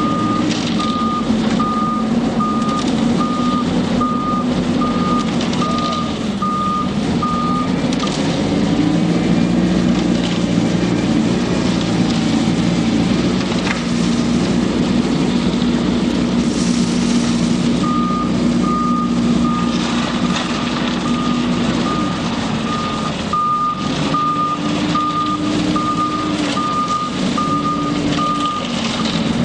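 Self-loading concrete mixer truck's engine running under varying load, its speed shifting up and down several times. A reversing alarm beeps steadily, roughly once a second, for the first third, falls silent, then beeps again through most of the last third.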